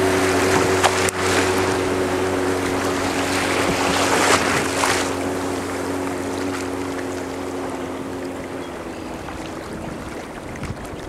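A motorboat engine runs with a steady hum over water and wind hiss. The engine hum fades away about eight and a half seconds in, leaving the hiss.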